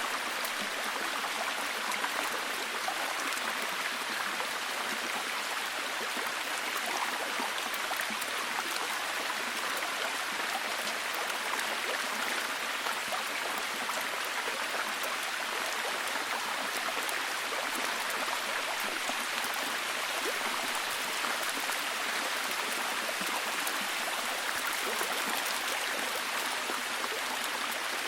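Steady heavy rain falling, an even hiss dense with small drop patters.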